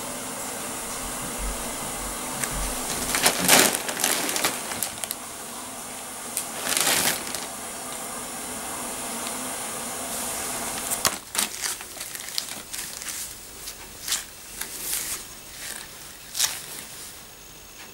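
Empty plastic snack packet crinkling and crackling in irregular bursts as a cat paws and noses it, over a steady hiss.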